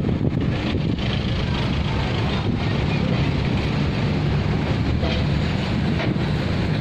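Wind buffeting the microphone: a steady, loud rumble with hiss and no breaks.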